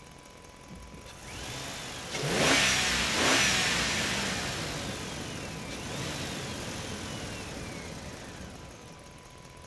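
A truck driving through a parking structure: it comes up about a second in, is loudest around three seconds, then slowly fades away. High thin squeals glide up and down over the engine and tyre noise.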